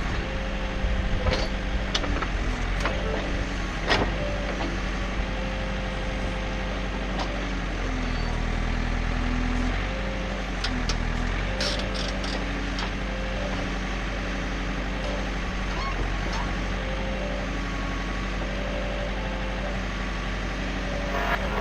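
John Deere 110 backhoe loader's diesel engine running steadily under work, its note shifting briefly about halfway through. Short repeated whining tones and a few sharp knocks and clanks of the digging gear sound over it.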